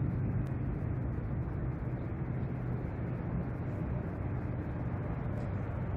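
Steady road-traffic noise, an even rumble with no single passing vehicle standing out.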